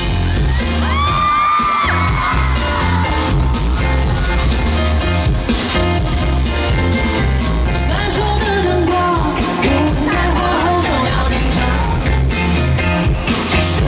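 Live pop band playing over a concert PA, with a steady drum beat and heavy bass, and a woman singing into a microphone with backing singers.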